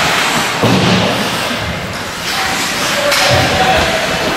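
Ice hockey game noise in a rink: a dull thud about half a second in and a softer one just after three seconds, over a steady hiss of arena noise. Voices call out in the second half.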